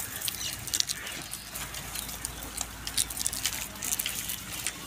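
Rustling leaves and light crackling twigs as a herd of goats and sheep browse on branches being pulled down for them, with many small sharp clicks.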